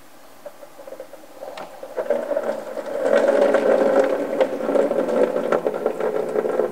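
Engine coolant pouring out of a disconnected coolant hose and splashing into a catch pan. It starts about two seconds in and runs steadily louder from about three seconds.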